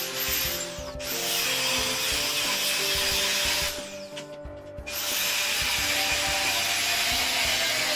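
Electric power tool running with a high-pitched whir, briefly easing off about a second in, then spinning down about four seconds in and starting up again a second later. Background music plays underneath.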